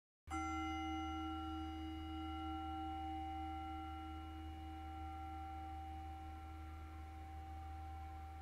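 Meditation bell struck once about a split second in, ringing on with several clear overtones that fade slowly. It is the cue bell of a guided meditation.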